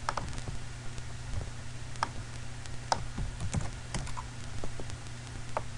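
Scattered clicks and keystrokes on a computer keyboard and mouse, a handful of separate sharp taps rather than continuous typing, over a steady low hum.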